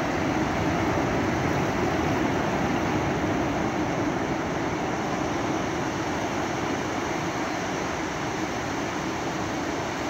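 Sea surf: small waves breaking offshore and washing up over flat wet sand in a steady rushing wash, swelling slightly a second or two in and then easing a little.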